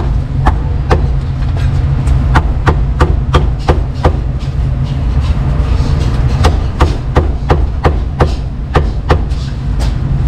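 Cleaver chopping roast meat on a chopping board: a run of sharp strikes, about two to three a second at an uneven pace, over a steady low rumble.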